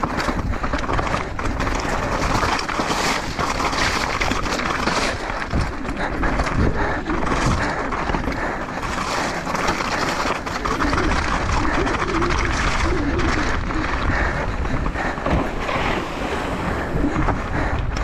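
Mountain bike descending a rocky scree trail at speed: tyres crunching over loose rock and gravel, with constant small knocks and rattles from the bike, mixed with wind on the microphone.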